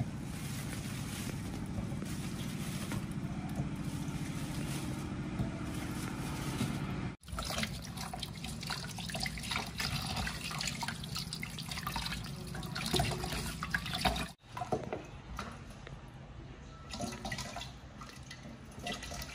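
Tap water running into a stainless-steel kitchen sink and splashing in a metal bowl as tomatoes are rubbed clean by hand. The sound cuts off abruptly twice, about seven and fourteen seconds in.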